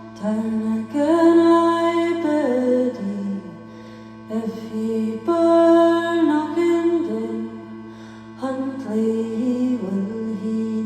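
Slow live music: a steady low drone held throughout, with a slow melody line over it in several phrases.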